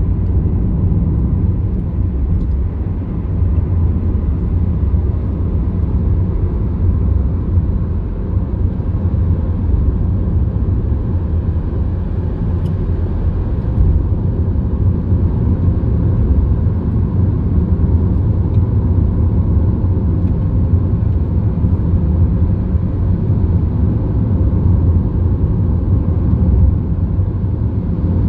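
Steady low rumble of a car travelling along the road: engine and tyre noise, unchanging throughout.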